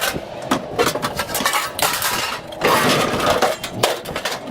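Scrap metal clanking and clattering, with repeated sharp metal impacts as pieces are thrown and dropped.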